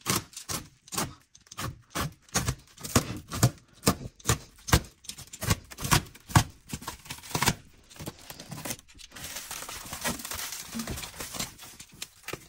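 Plastic stretch wrap being slit with a box cutter and torn off furniture: a quick series of sharp ripping strokes, then steadier crinkling of the loosened film for the last few seconds.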